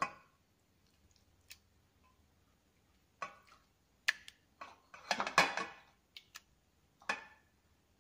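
A spoon clinking and scraping against a steel bowl in scattered short clicks, with the loudest run of scraping about five seconds in, as onion, garlic and ginger paste is spooned onto chicken in yogurt.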